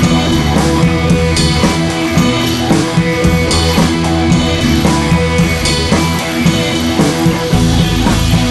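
Rock music with guitar and a drum kit keeping a steady beat.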